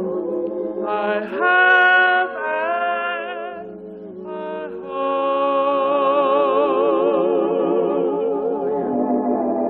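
Gospel singing: long held notes with heavy vibrato, stepping between pitches without clear words, over a steady low sustained note.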